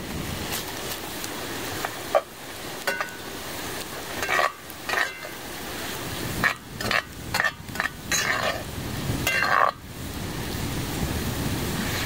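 Ground turkey sizzling as it browns in oil in a Dutch oven over a campfire, with a spoon scraping and clinking against the pot now and then as it is stirred.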